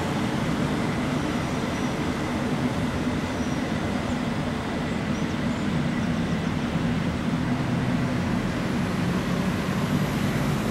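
DB class 112 electric locomotive at the head of a double-deck regional train, giving a steady drone with a faint high tone above it.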